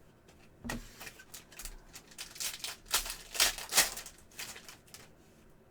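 Trading cards handled and flipped through in the hand, a run of quick clicks and swishes that is busiest and loudest about three to four seconds in.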